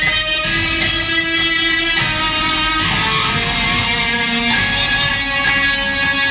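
Emerald green Reverend Flatroc electric guitar played through a Skreddy Screwdriver overdrive pedal and amp: loud, overdriven phrases of long sustained notes that change pitch every second or so.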